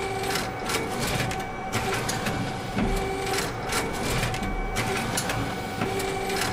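Robotic page-turning arm of a Kirtas APT BookScan book scanner cycling through a bound book: a run of mechanical clicks and clatter, with a short motor whir about every three seconds as each page is turned, over a steady machine hum.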